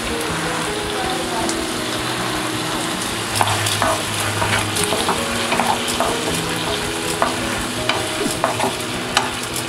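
Onions and bell peppers sizzling in a nonstick pan with soy sauce, chilli sauce and ketchup, a steady frying hiss. From about three seconds in they are stirred, and the utensil clicks and scrapes against the pan many times.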